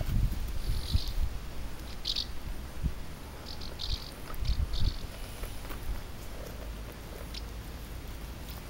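Roe deer fawn suckling goat milk from a plastic bottle: short squeaky sucking sounds come in irregular spurts, mostly in the first half. Irregular low thumps sound underneath.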